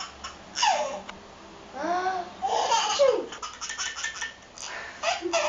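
A baby laughing in several short bursts, with high, rising-and-falling squeals and pauses between them.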